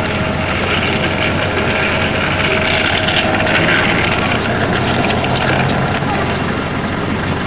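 Steady hiss and low hum of an old camcorder tape recording, with no clear single sound standing out.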